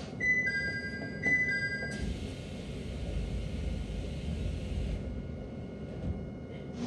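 Two-note descending chime sounding twice aboard a stopped HK100 railcar, followed by about three seconds of hissing air with a low rumble.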